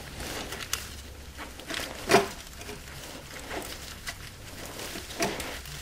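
Scattered light clinks and knocks of hands and tools working at the starter's upper mounting bolt on a 2002 Dodge Neon, the loudest knock about two seconds in, over a low steady hum. The starter is loose on its mount and pivots as it is worked.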